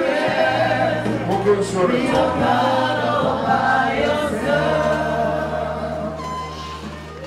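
Choir and congregation singing a gospel worship song over held low accompaniment notes, the music fading down near the end.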